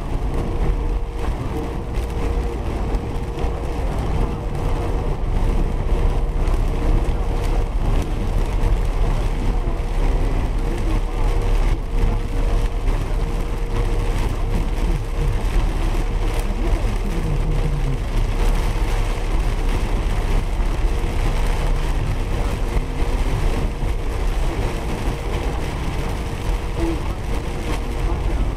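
Inside a car driving through heavy rain: a steady rumble of the engine and tyres on the flooded road, with rain and spray washing over the windscreen. A faint hum pulses about once a second throughout.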